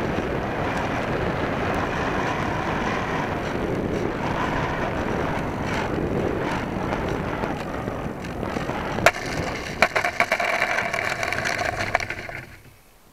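Electric RC model plane heard from its own onboard camera: a steady rush of air on the approach, then from about nine seconds in it touches down and scrapes and rattles along rough asphalt, going quiet as it stops near the end.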